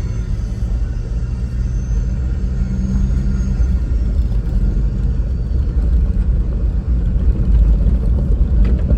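Four-wheel-drive vehicle driving on a dirt track. A steady engine hum fades after a few seconds into a low rumble of tyres and wind that grows louder, with a brief knock near the end.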